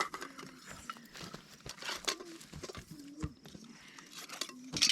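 Rustling and handling sounds as camp-stove fuel canisters are picked up and checked for fuel, with a few short knocks, the loudest near the end, and brief faint voices.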